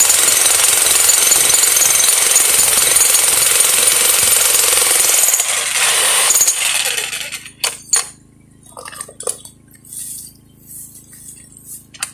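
Electric jackhammer hammering into rock, a dense steady pounding that stops a little over halfway through. After it stops, a faint steady low hum and a few scattered knocks remain.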